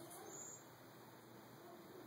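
Near silence, with one brief, faint, high thin call from a cedar waxwing about half a second in.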